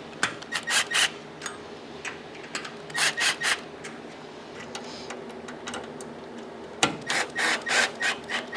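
Ratchet wrench tightening the bolts of the welding cart's cable holders: three bursts of quick rasping clicks, one near the start, one about three seconds in, and a longer one near the end.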